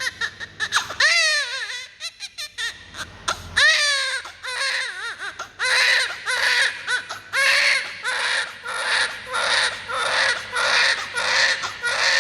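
Baby crying: broken, wavering cries at first, then a steady run of rhythmic wails, about one a second, from about halfway on.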